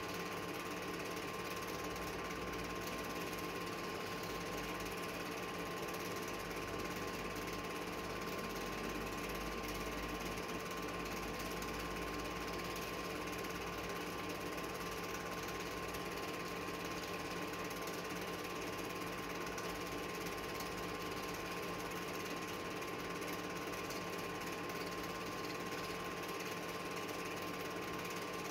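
Film projector running: a steady mechanical whirr and clatter with a constant hum.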